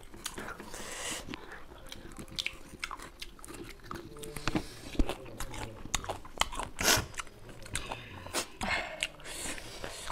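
Close mouth sounds of people biting and chewing raw lemon slices: irregular wet crunches, smacks and slurps, with a couple of louder bites about 5 and 7 seconds in.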